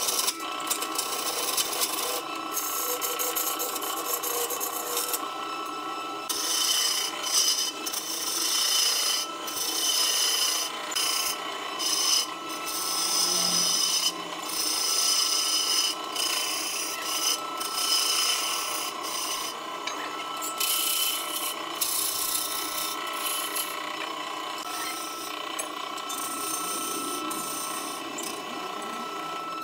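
Hand-held turning tool cutting a block of wood spinning on a lathe: a continuous scraping, rasping sound that swells and eases as the tool bites and lets off.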